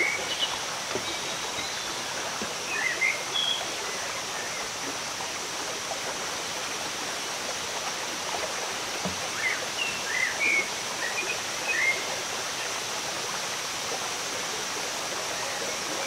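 Steady rushing of water from the cascading tiers of Erawan Falls and the stream below them, with scattered short bird chirps through it.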